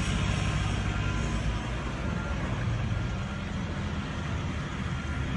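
Pickup truck engine running hard under load as the truck climbs out of a deep muddy rut: a steady low drone under a broad rushing noise, easing off slightly toward the end.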